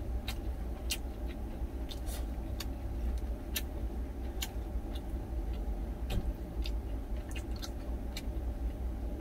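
Close-miked chewing of rice and side dishes with the mouth closed, heard as many short, irregular wet clicks, over a steady low hum in the truck cab.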